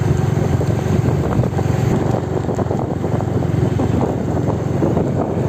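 Steady low rumble of a car being driven, with wind noise on the microphone.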